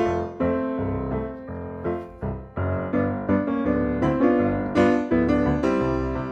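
Background music led by piano, with chords struck about twice a second.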